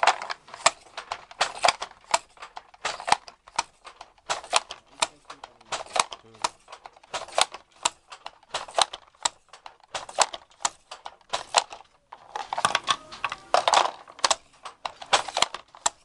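Wooden handloom being worked: the shuttle shooting across and the batten beating up the weft make a steady clatter of sharp wooden knocks, about one to two a second.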